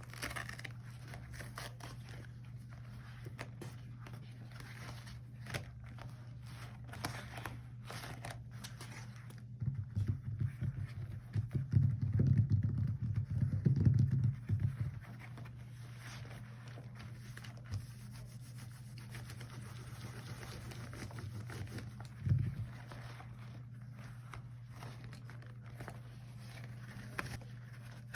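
Rubber gloves handled close to the microphone: soft rubbing with small sticky clicks, and a louder stretch of close, low rubbing about ten to fifteen seconds in, over a steady low hum.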